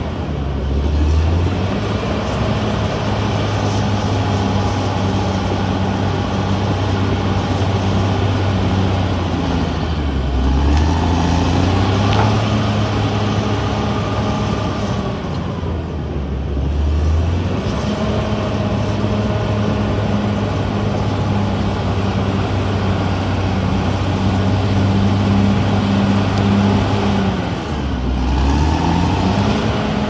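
CAT D6R XL crawler bulldozer's diesel engine running hard as the dozer pushes soil. The engine note drops and climbs back several times, about a second in, near ten seconds, near sixteen seconds and near the end.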